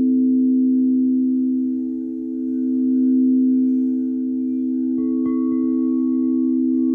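Singing bowls ringing with a steady, low, sustained tone that slowly swells and ebbs. About five seconds in, a higher-pitched bowl is struck and its ring joins the drone.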